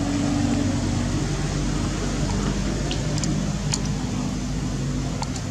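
A steady low mechanical hum, like a motor running, over a constant background hiss, with a few faint short ticks.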